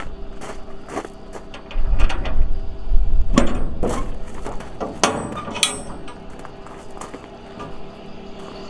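Footsteps crunching on gravel, then the steel locking bars and latches of a shipping container door clanking sharply as they are unlatched and the door is pulled open.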